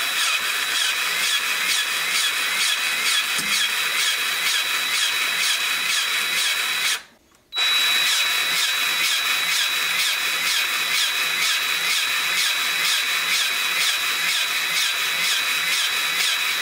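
Powered grease gun running steadily, pumping grease through a fitting into a brake caliper's hose port to force a seized piston out of its bore. A steady high whine with a regular pumping pulse, stopping briefly about seven seconds in, then carrying on.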